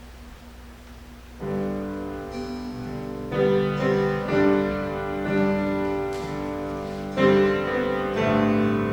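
Piano starts playing about a second and a half in, struck chords that ring on, the start of a slow piece. Before it there is only a faint steady hum.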